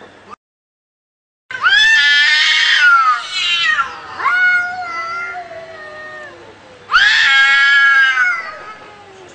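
Angry cat yowling: long, wavering, high-pitched wails that bend up and down in pitch. A second of dead silence comes just after the start, then a loud yowl, quieter wailing, and a second loud yowl near the end.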